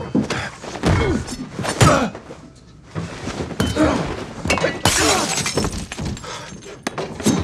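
Film fight sound effects: a quick run of blows and thuds with glass breaking and shattering, including a louder burst of shattering glass about five seconds in.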